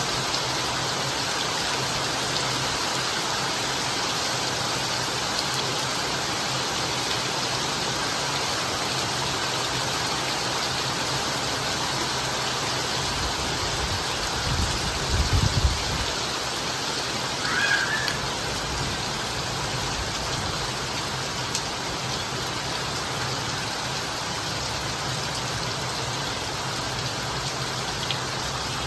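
Steady rain falling and pattering on surfaces. About halfway through there is a brief low rumble, and a moment later a short higher-pitched sound.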